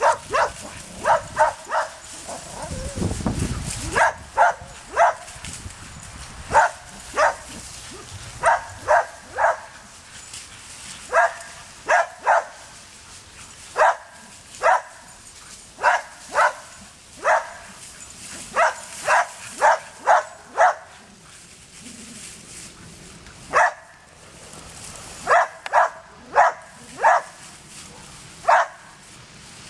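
A dog barking over and over in quick runs of two to four short, sharp barks with brief pauses between runs. These are play barks during rough chasing and tugging over a stick between two young dogs.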